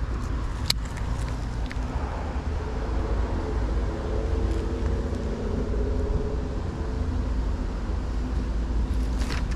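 Road traffic with a steady low rumble; a motor vehicle passes, its engine note swelling and fading in the middle. A single sharp click comes just under a second in.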